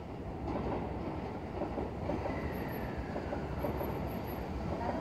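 Seibu 40000 series electric train approaching along the track, its wheel-and-rail rumble slowly building. A faint whine falls in pitch partway through.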